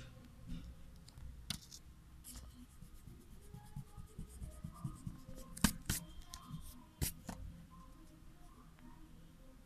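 A small eraser rubbing on paper to rub out pencil lines, scratchy and faint, with several sharp ticks as the paper is handled.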